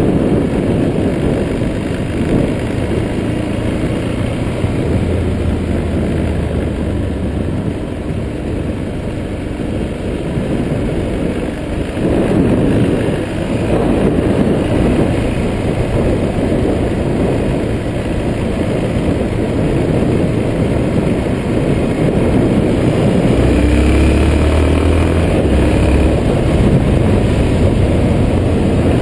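Motorcycle being ridden along at a steady pace, its engine running under a heavy rumble of wind on the handlebar-mounted microphone.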